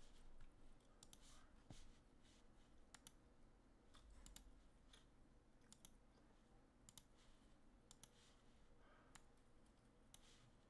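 Near silence: room tone with faint, irregular clicks scattered throughout.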